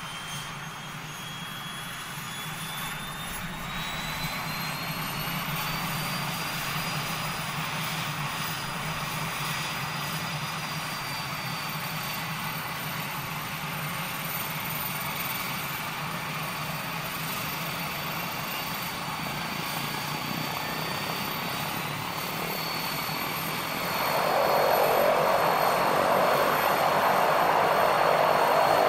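Engine of a WWI Curtiss JN-4 Jenny biplane running with its propeller turning. The engine speed rises over the first few seconds, then holds steady, and the sound grows clearly louder about 24 seconds in, a light rev.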